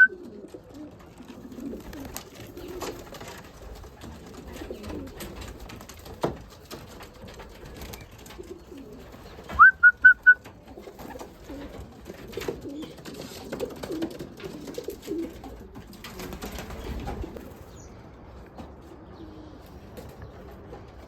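Racing pigeons cooing in a loft, with scattered rustling and clicks. About ten seconds in, a quick run of four or five loud, high whistled notes.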